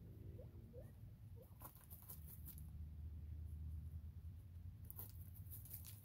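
Bobwhite quail scratching and kicking in dry hay bedding: two bursts of light rustling clicks, about a second and a half in and again near the end, over a faint low hum.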